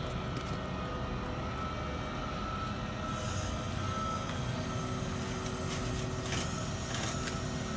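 A vehicle engine running steadily with a constant whine. A high hiss joins about three seconds in.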